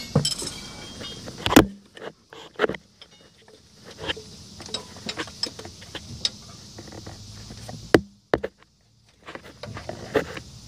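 Irregular metallic clicks, clinks and knocks of hand tools and parts being handled while working in an engine bay, with two sharper knocks, one about a second and a half in and one near the eight-second mark.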